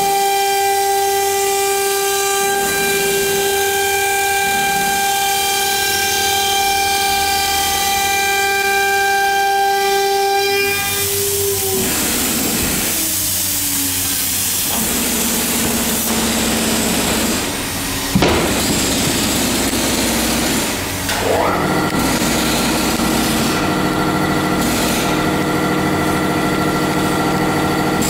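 CNC router spindle running with a steady whine, then winding down a little over a third of the way in, its pitch falling away. A sharp click follows, and about three-quarters of the way in a higher-pitched whine starts up and holds.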